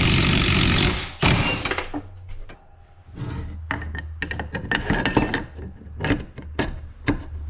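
A loud, even rushing noise lasting about a second, then a run of clicks, knocks and clinks as a steel suspension control arm and its pivot shaft and rubber bushing are handled and fitted together on a wooden workbench.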